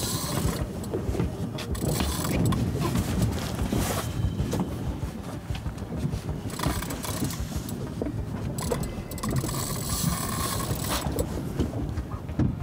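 Wind and water noise on a small fishing boat, with a spinning reel's drag giving line in stretches as a hooked yellowfin tuna makes a run.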